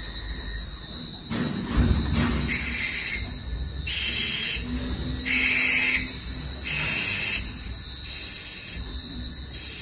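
CNC Swiss-type lathe running its machining cycle: a steady high whine, a heavier thump and rumble about two seconds in, then four short hissing bursts of cutting about a second apart.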